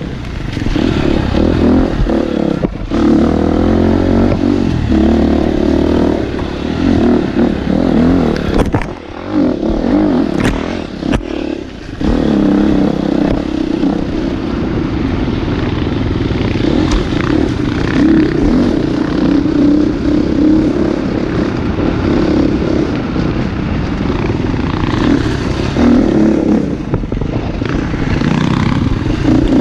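Dirt bike engine heard on board, running hard under throttle along a rough trail. About nine seconds in the throttle eases off for a few seconds, with several sharp knocks and clatter from the bike, before the engine picks up again.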